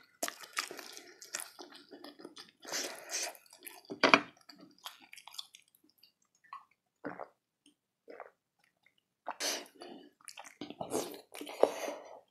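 Close-miked eating and drinking mouth sounds: wet chewing and smacking, and swallowing sips of water from a drinking glass, in short irregular bursts with a quieter stretch in the middle.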